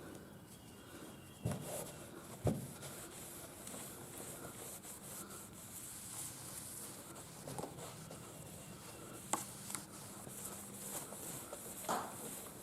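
Microfiber cloth rubbing back and forth over a painted hood, wiping off the high gloss polish by hand, with a few light knocks along the way.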